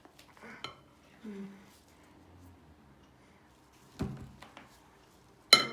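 Clinks and knocks of a spoon against a bowl and other utensils while slime ingredients are being handled, ending in a loud clattering knock with a brief ring.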